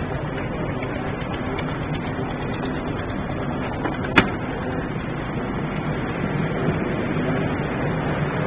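Rotary drum sawdust dryer plant running with a steady mechanical din. A single sharp click comes about four seconds in.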